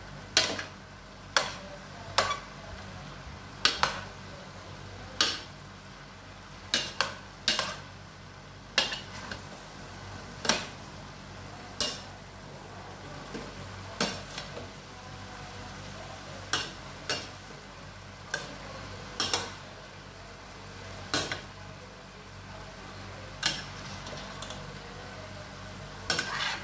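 Large metal spoon knocking and scraping against a stainless steel pan as shredded vegetables are stir-fried and tossed. The clanks come irregularly, every second or two, over a steady low hum.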